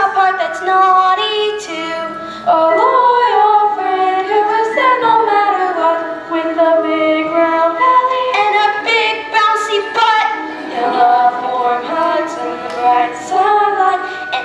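A young girl's voice singing a song from a school musical, one melody line of held notes with some sliding phrases.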